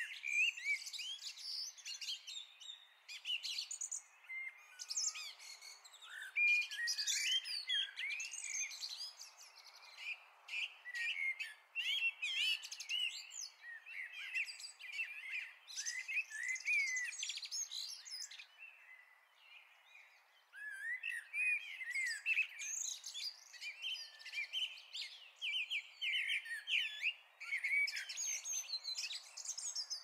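Songbirds singing: a dense, unbroken run of varied chirps, whistles and chattering notes, with a short lull about two-thirds of the way through.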